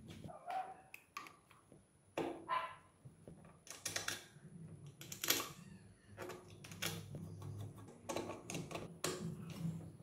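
Metal parts and tools clicking, tapping and clinking against an engine crankcase as it is reassembled: a dozen or so sharp knocks, a few with a short ring, the loudest about five seconds in.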